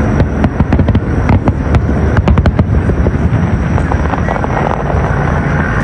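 Aerial fireworks: a dense run of sharp crackling pops from a crackling-star shell over a steady low rumble of bursts. The crackles thin out after about two and a half seconds.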